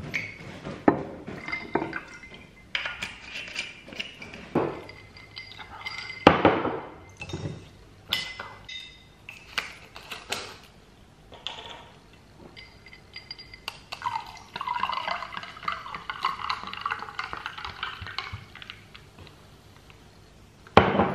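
An orange aperitif poured from a bottle over ice into tall glasses, with ice and glass clinking and glasses knocking on the counter. Later the foil is worked off a bottle of sparkling wine, a rustling stretch lasting a few seconds.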